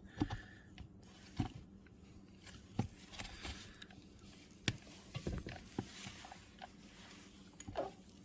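Scattered light clicks and knocks of metal parts and tools being handled, about seven spread over several seconds, over a faint steady hum.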